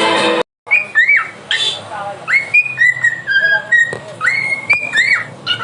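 Music that cuts off about half a second in, then a quick series of short whistled notes, each swooping up and falling in pitch, several a second.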